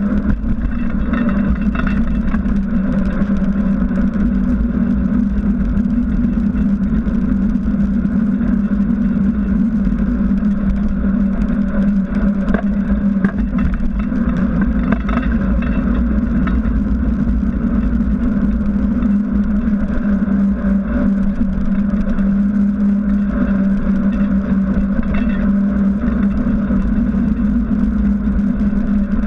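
A bicycle in motion, heard from a handlebar-mounted camera: a knobby mountain-bike tyre rolling on asphalt and wind on the microphone make a steady low rumble with a constant hum.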